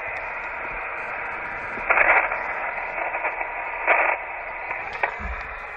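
Steady receiver hiss and static from the speaker of a Yaesu FT-817ND HF transceiver with no station talking on the frequency. Two short louder swells of noise come about two and four seconds in, and a click and a low thump come near the end.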